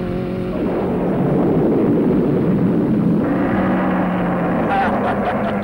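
Cartoon vehicle sound effect for a race car launched into the sky: a rushing, rumbling noise that gives way about three seconds in to a steady engine drone, with rapid clicking near the end.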